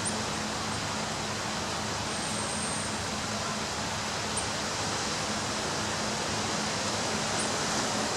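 Ocean waves breaking on a beach, heard as a steady, even rush of surf.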